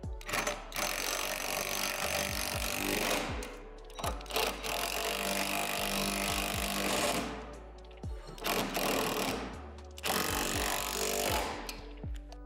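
Cordless Ridgid impact driver hammering nuts and bolts tight on steel backboard brackets, in four runs of a few seconds each with short pauses between.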